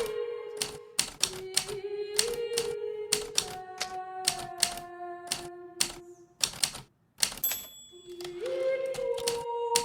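Hermes Baby portable typewriter keys striking in an irregular run of several a second, with a brief pause a little past halfway. Soft background music with long held notes plays underneath.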